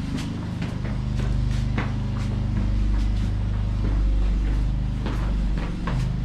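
Footsteps and scuffs on a rocky path, sharp irregular clicks about two a second over a steady loud low rumble.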